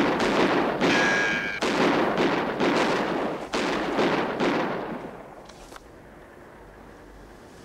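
A rapid burst of gunfire on a film soundtrack: many overlapping shots from the first moment, with a brief high whistling tone about a second in, fading out and stopping about five seconds in.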